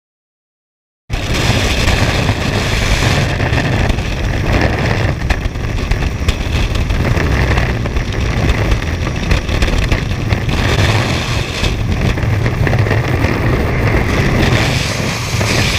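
Freefall wind rushing over a helmet-mounted camera's microphone during a skydive: a loud, steady rush of noise that starts suddenly about a second in.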